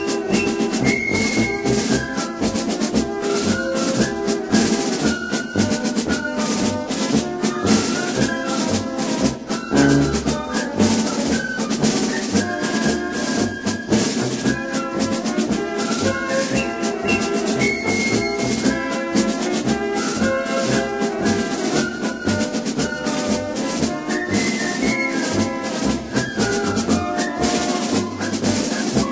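Orchestral march-style music: sustained brass melody lines over busy, steadily repeating rattling percussion.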